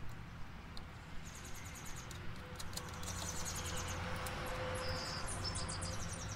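Rustling and light clicking of wires and a plastic connector being handled at the voltage regulator of a John Deere GX345 lawn tractor. Short trains of rapid high-pitched ticking come and go in the background.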